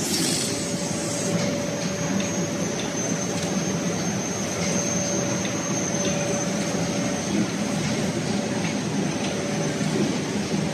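Automatic rigid box making machine running: a steady mechanical drone with a continuous whine and faint intermittent clicks, and a short hiss right at the start.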